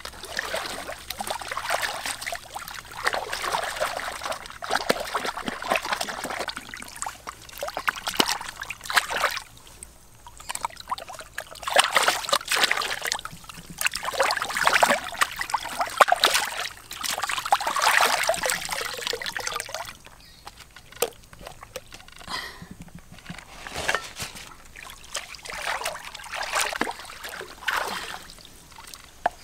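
Stream water splashing and sloshing as a large gutted fish is swished and rinsed by hand in the shallows. The splashing grows lighter about two-thirds of the way through, leaving scattered splashes and trickling water.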